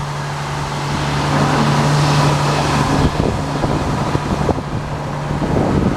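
Sawmill engine running steadily and throttled up a little over the first couple of seconds, driving the mill through belts that are tight and wet. Irregular clicking and rattling from the machinery comes in partway through.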